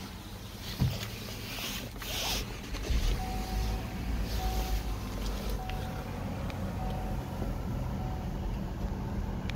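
A Chevrolet car's warning chime: a short single tone repeating about once every 1.2 seconds, five times, with the ignition on and the driver's door open. There is a rustle of handling about two seconds in, over a low rumble.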